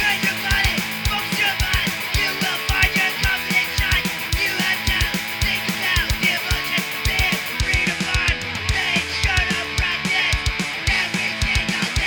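Punk rock band playing: electric guitars over a drum kit with a fast, steady kick drum.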